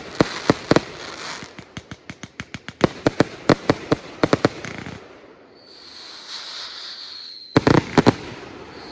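180-shot "Under Lock & Key" consumer firework cake firing: a rapid run of sharp bangs as its shells burst for about five seconds, then a few seconds of hissing crackle. A fresh quick cluster of bangs comes near the end.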